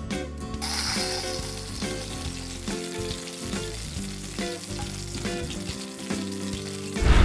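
Rendered duck fat and juices sizzling and bubbling in a smoker's hot drip pan, starting about half a second in, over background guitar music. A loud low thump comes at the very end.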